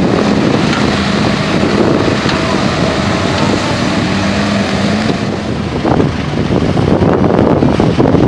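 Lifted pickup mud truck's engine running steadily under load as it plows through a flooded mud pit, with the mud and water churning around it. From about five seconds in, the engine tone gives way to heavy wind buffeting on the microphone.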